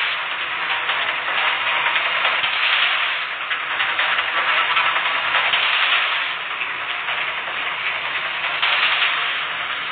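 A large audience cheering and screaming, a steady roar of many voices that swells and dips slightly without breaking.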